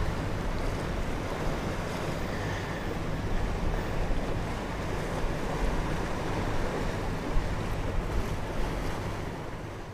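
Steady wind rushing over the microphone, mixed with the wash of waves in the water around the pier.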